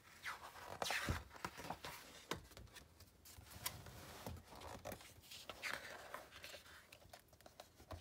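A large picture-book page turned by hand, the paper rustling and crackling with a run of short scratchy sweeps and clicks.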